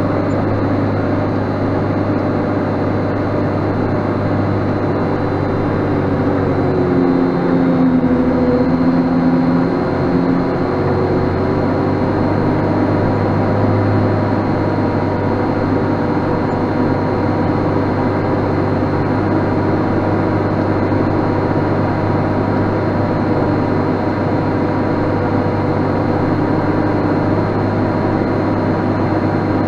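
JCB Fastrac 7270's six-cylinder turbo Cummins diesel working hard under load, pulling a six-furrow plough; a steady engine note whose pitch shifts and swells briefly about seven seconds in before settling back.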